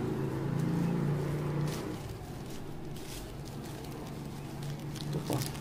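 Thin plastic bags crinkling briefly a few times as they are handled, over a steady low hum.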